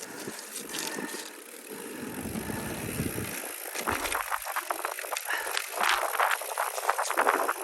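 Mountain bike being ridden along a rough trail: a steady rush of tyre and wind noise, then from about four seconds in a fast, loud rattling and clattering as the bike runs over rocks.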